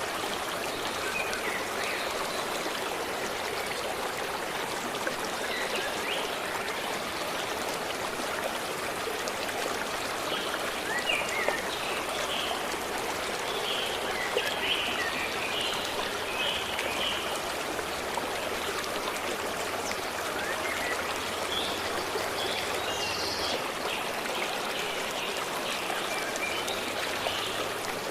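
Stream of water flowing and splashing steadily, with birds chirping now and then, most busily in the middle and again near the end.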